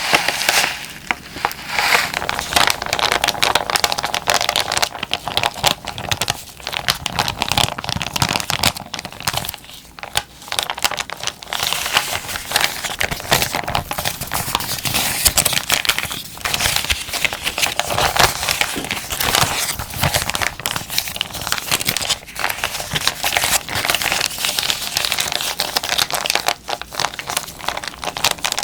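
Plastic zipper bag being crumpled and squeezed by hand, giving a dense, continuous crinkling and crackling with brief lulls.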